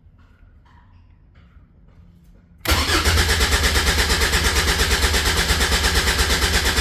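Caterham 7 620S cranking on its starter motor at about four even pulses a second without firing: a cold no-start. A few faint clicks come before the cranking sets in, about two and a half seconds in.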